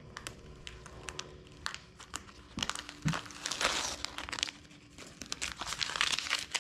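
Blue painter's masking tape being peeled off a vinyl dash pad and crumpled up in the hand: a run of crackling and crinkling, loudest in the middle and again near the end.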